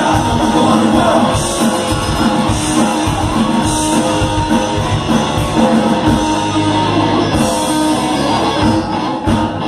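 Punk band playing live: loud electric guitars and drums with a singer's vocal over them.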